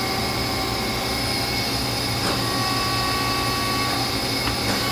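Haas HL-2 CNC lathe's hydraulic three-jaw chuck being opened and closed: a sharp clack about two seconds in and two quick clicks near the end, over the steady hum and whine of the running machine.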